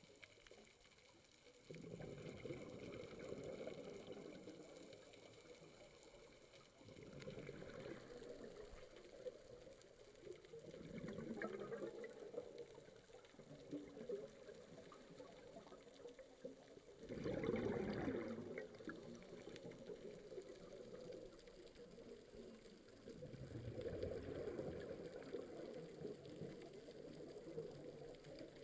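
Scuba diver breathing through a regulator, recorded underwater: exhaled bubbles gurgle out in about five separate bursts a few seconds apart, the loudest about two-thirds of the way through.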